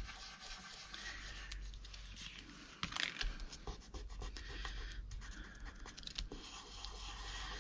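Faint rustling and scratching of paper being handled and pressed on a craft table, with scattered light clicks and a sharper tap about three seconds in.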